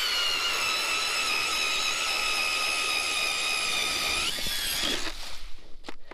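StrikeMaster Lithium 24V electric ice auger whining steadily under load as it bores a hole through the ice. About four seconds in the pitch rises as the motor speeds up, and a second later it stops, followed by a few short knocks.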